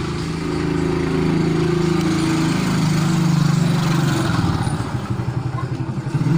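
A small engine running steadily with a low, even beat. The beat grows uneven about five seconds in.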